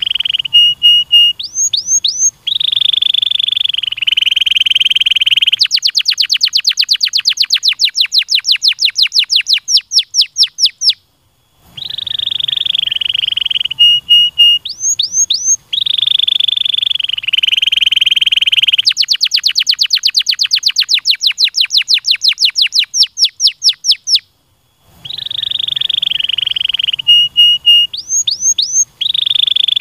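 Domestic canary singing: the same song phrase comes round about every 13 seconds. Each phrase has a long buzzy note, a few quick upswept whistles, and a long fast trill of rising notes, with a short pause between phrases.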